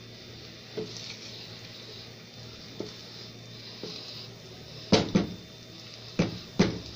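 Wooden spatula stirring rice in a pot, with a few light knocks, then several sharp louder knocks of the spatula against the pot near the end.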